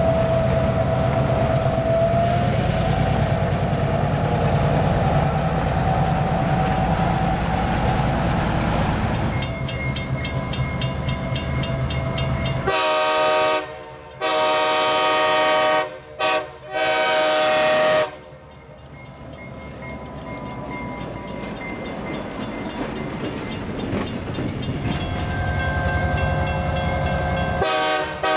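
Diesel switcher locomotives passing with a steady engine rumble and whine, then a ringing crossing bell. The locomotive's air horn then sounds the grade-crossing signal, two long blasts, a short one and a long one, followed by the engine approaching and the bell ringing again.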